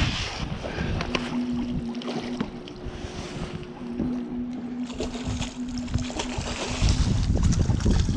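Wind and handling noise on a chest-mounted camera's microphone, with scattered clicks and knocks. A steady low hum sets in about a second in and fades out about two-thirds of the way through.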